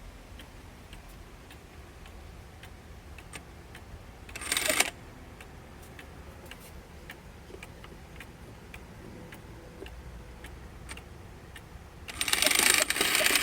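Cuckoo clock movement ticking steadily, about two ticks a second. A short rustle comes about four and a half seconds in, and a much louder scraping noise starts near the end.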